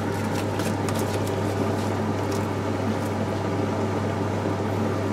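Hot-air fryer running with a steady droning hum, with a few light scrapes of a wooden spoon stirring a cream sauce in the pan.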